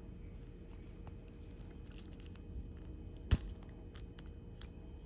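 A few light clicks and taps of the plastic key fob parts and coin battery being handled, one sharper click a little past the middle, over a faint steady hum.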